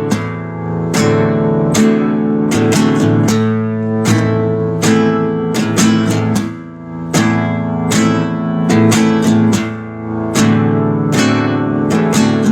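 Acoustic guitar (violão) with chords strummed in a rhythmic pattern, several strokes a second with quick flurries, each chord ringing on.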